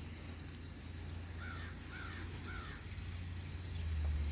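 A crow cawing three times in quick succession, over a low steady rumble that gets louder near the end.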